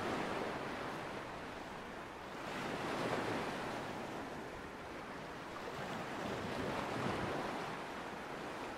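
Small waves washing onto a sandy shore, a steady hiss of surf that swells and fades every few seconds.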